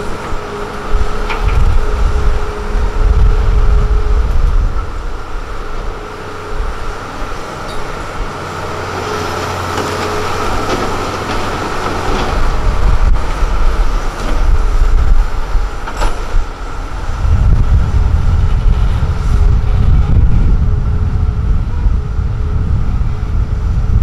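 Hitachi Zaxis 330LC excavator's diesel engine and hydraulics working under load as it digs and swings a full bucket over a dump truck, with a steady whine over a deep rumble. The rumble eases in the middle and swells again about two-thirds of the way through, and there is a single sharp click past the middle.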